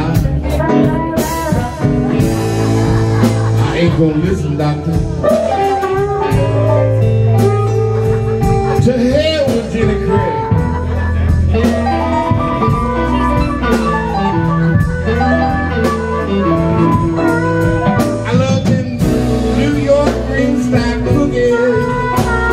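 Live blues band playing a slow blues, with electric guitar over drums, keyboard and bass.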